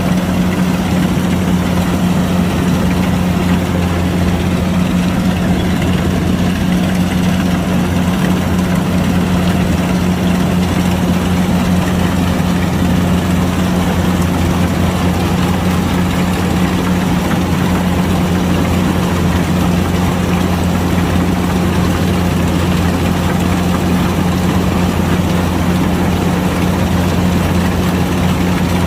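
Kubota DC105X combine harvester's diesel engine running steadily, a constant low hum.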